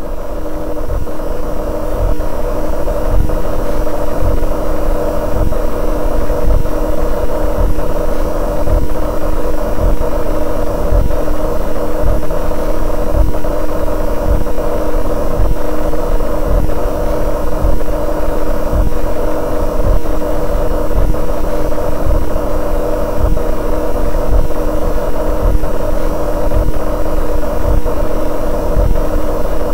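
Fluorescent lighting hum, electronically 'enhanced' into a loud, steady, annoying drone: a constant buzzing tone over a low pulsing rumble.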